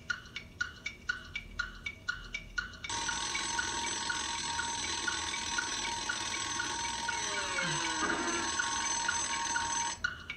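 Alarm-clock sound effect on a TV soundtrack: steady ticking at about three ticks a second, then from about three seconds in a loud bell ringing that stops suddenly near the end. A falling glide is heard partway through the ringing.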